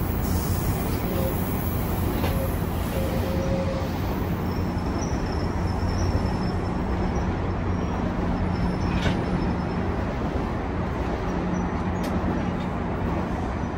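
GO commuter train's diesel locomotive running steadily at the station platform: a low engine rumble with a few faint clicks.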